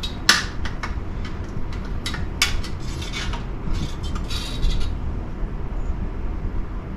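A series of light metallic clinks and rattles, bunched in the first five seconds, over a low steady hum.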